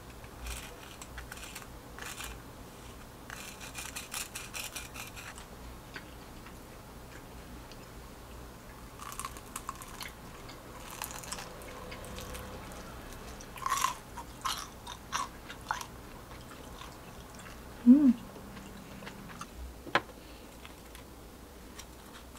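Crunching and chewing of crispy pan-fried dumplings: scattered crackly bites and clicks, with a denser run of crunching a few seconds in. Near the end there is a brief low hum followed by a sharp click.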